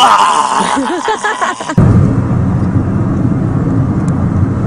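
A man yelling, then a sudden change to the steady low rumble of road and engine noise inside a moving car's cabin.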